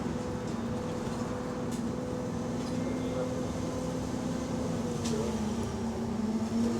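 Bus engine running while the bus is under way, heard from inside the bus, with an exhaust leak: a steady drone whose pitch dips slightly about five seconds in, with a few faint clicks and rattles.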